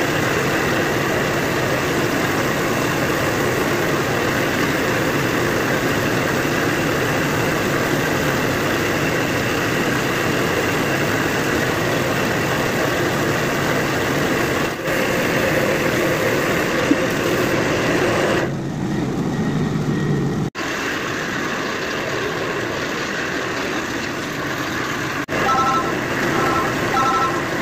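Compressed-air paint spray gun hissing steadily over a machine drone while spraying paint onto a motorcycle fuel tank, with a few abrupt breaks where the sound cuts. Near the end a repeating pattern of short electronic beeps joins it.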